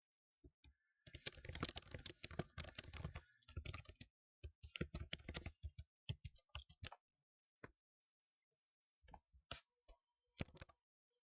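Typing on a computer keyboard: fast runs of key clicks for the first few seconds, then slower, scattered single key taps with gaps between them.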